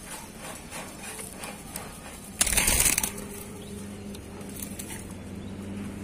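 A caged jinjing batu, a large black bird, flapping its wings once in a brief half-second flurry inside its wire cage as it goes from the floor up to its perch. A steady low hum runs underneath.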